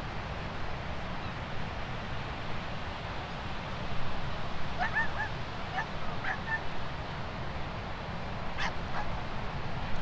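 Steady wash of sea waves breaking on the beach. A dog barks several times in a quick run about five seconds in, and again once or twice near the end.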